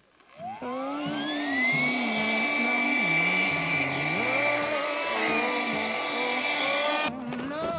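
Portable electric air pump switched on to suck the air out of an air tent's inflatable beams: the motor spins up with a rising whine, then runs at a steady high whine with a rush of air. The rushing sound cuts off near the end.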